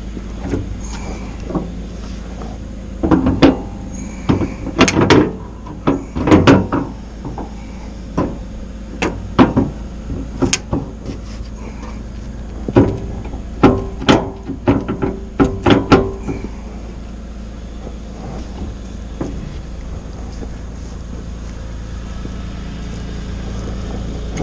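Mitsubishi Minicab mini dump truck's engine running steadily, with several bursts of loud metallic clanks and bangs from its dump tray and tailgate.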